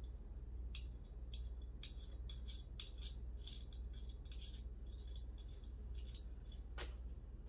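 Brass plumbing fitting being turned and unscrewed by hand: scattered small metallic clicks and rattles, irregular, over a steady low hum.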